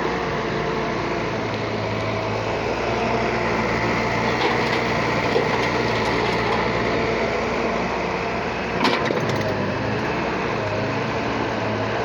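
Excavator engine running steadily at a constant speed, with a short knock about nine seconds in.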